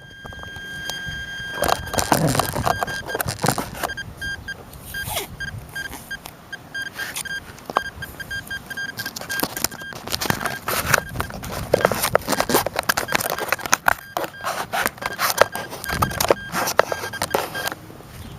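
Wind buffeting the onboard FPV microphone of a small electric RC plane in flight, in irregular gusty rushes. Under it runs a steady high-pitched whine that stutters and drops out in places.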